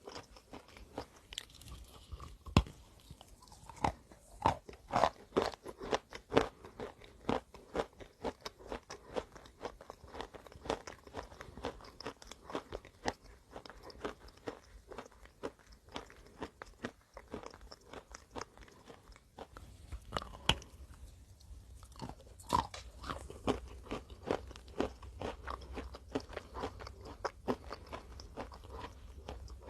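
A person biting into and chewing crunchy chalk-like chunks close to the microphone: dense, irregular sharp crunches, with the hardest bites in a cluster early on and again about two-thirds through. A low hum comes in about two-thirds of the way through.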